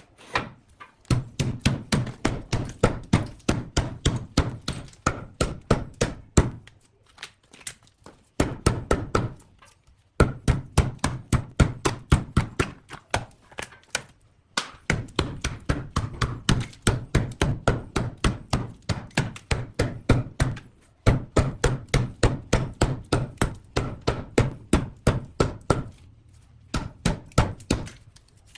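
Repeated hand-tool strikes on wood, about three a second, in runs of several seconds with short pauses between them.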